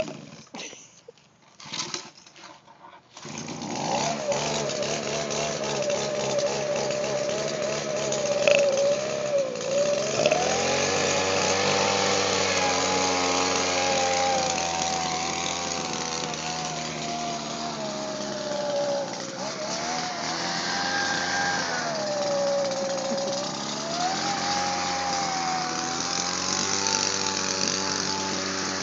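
Echo two-stroke leaf blower engine: a few short bursts, then it catches about three seconds in and runs steadily, its speed wandering up and down.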